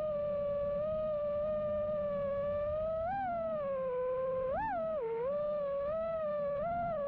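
FPV quadcopter's brushless motors and props whining at a steady cruise, with a rushing wind of prop wash beneath. In the second half, quick throttle blips make the pitch jump and drop back, most sharply about four and a half seconds in.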